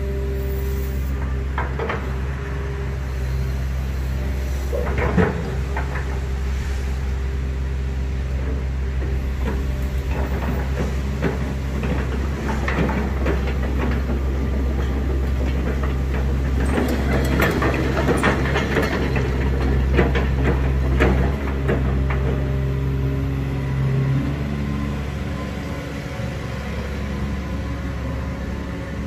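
Volvo EC220DL crawler excavator working: its diesel engine and hydraulics run steadily while the boom moves and the upper structure swings, with a low engine drone that shifts in pitch about three quarters of the way through. Scattered metallic clanks and knocks from the machine come through, most often in the middle part.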